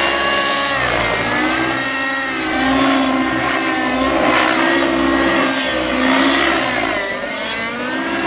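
Aeolus 50 radio-controlled nitro helicopter flying aerobatics: its glow engine and rotor whine, the pitch sweeping up and down again and again through the manoeuvres.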